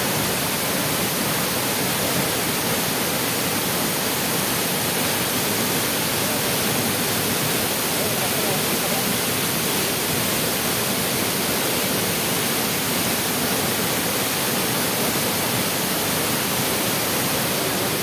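Large waterfall in heavy flow plunging into a pool below: a steady, loud rush of falling water.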